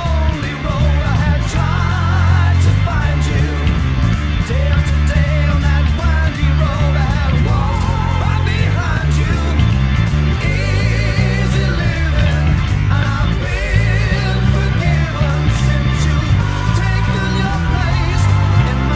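1970s hard-rock recording with a male lead singer and a busy, driving bass line, with an electric bass played along to it.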